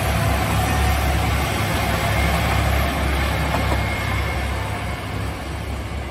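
Diesel engines of a HOT7000 series diesel multiple unit running under power as the train pulls away, a steady low drone mixed with wheel and rail noise that fades gradually near the end.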